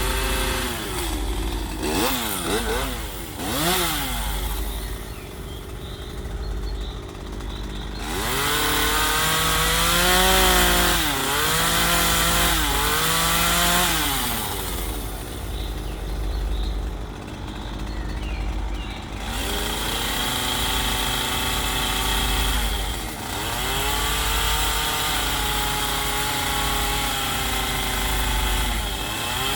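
Chainsaw engine revving up and down while carving wood, its pitch dropping each time the chain bites in under load. Between cuts it runs at lower revs.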